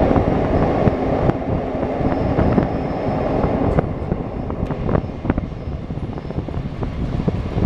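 Passenger train running at speed, heard from an open carriage window: a steady rumble with rushing wind and scattered clicks of the wheels over the rails. It is loudest while the train is in the tunnel and eases a little as the train comes out into the open.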